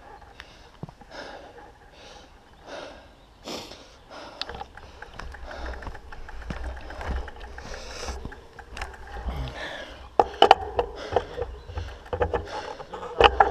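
Mountain bike rolling over a dirt and gravel path: tyres crunching and the bike rattling, with irregular clicks and knocks over a low rumble. The knocks get louder and sharper about ten seconds in.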